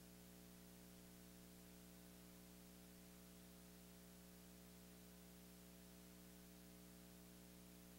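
Near silence: a faint steady electrical hum with hiss.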